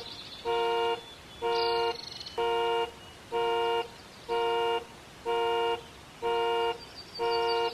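Car alarm sounding its horn in a steady pulse: eight honks about a second apart, each about half a second long.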